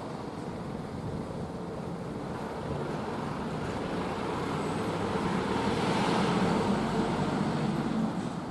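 Steady rumble of passing vehicles, swelling to its loudest about six seconds in and then easing off.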